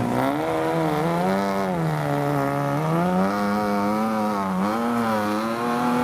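Off-road 4x4 competition vehicle's engine running under heavy load, its pitch sagging and rising again several times. It dips lowest about two seconds in and again near five seconds, then rises and holds high near the end.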